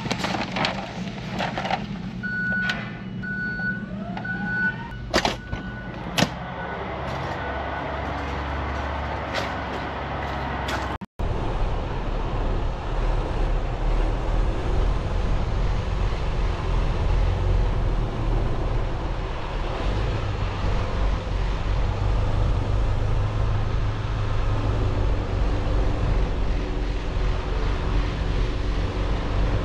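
A reversing alarm beeps repeatedly for several seconds over a low engine rumble, with a few sharp clicks and knocks. After an abrupt cut about eleven seconds in, a heavy truck's engine runs steadily.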